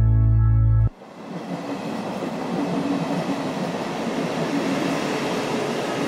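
Background music that cuts off abruptly about a second in, followed by an electric commuter train running past with a steady noise of wheels on the track.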